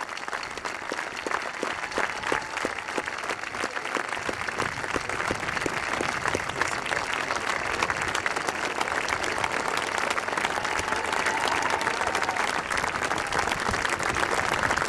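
Crowd of spectators applauding, the clapping growing steadily louder.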